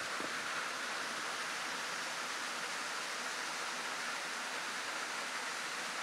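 Small waterfall spilling over a stone ledge into a pool: a steady, even rush of falling water.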